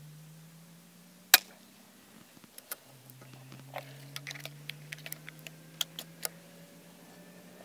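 A single shot from an FX Impact MKII .22 PCP air rifle, a sharp report about a second in. It is followed by a run of small clicks and knocks as the action is cycled and the next Howler slug is loaded by hand, single shot, with a faint low hum underneath.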